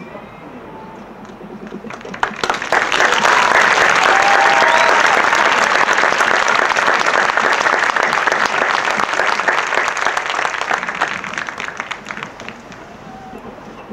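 Crowd applauding, with a few shouts. The applause swells sharply about two seconds in and dies away near the end.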